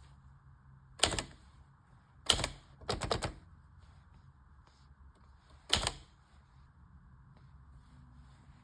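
Olivetti Lettera 32 manual typewriter typing slowly: single sharp key strikes with long pauses, and a quick run of three or so strikes about three seconds in.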